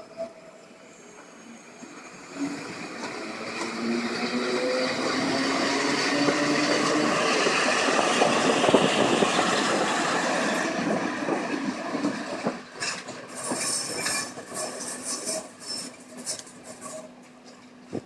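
Passenger train moving through a railway station. A rising motor whine swells over several seconds, then gives way to clattering wheels with intermittent high squeals as it fades.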